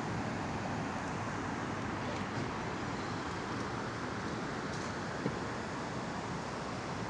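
Steady street ambience of city traffic, with one brief click about five seconds in.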